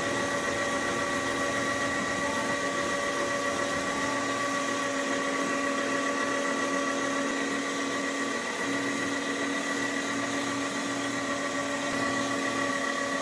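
Electric meat grinder running, its motor giving one steady whining hum as it grinds pork.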